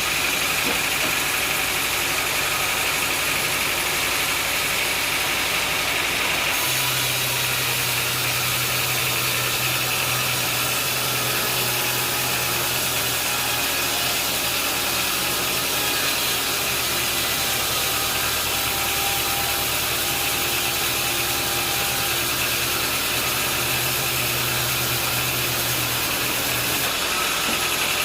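An engine running steadily under a dense mechanical noise. About six seconds in the sound changes and a steady low hum sets in, lasting until near the end.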